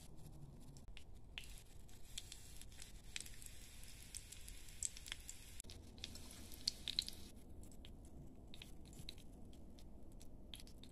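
Hot oil sizzling and crackling in a miniature wok as a small breaded artichoke heart deep-fries: a dense patter of tiny pops, busiest in the middle and thinning out toward the end.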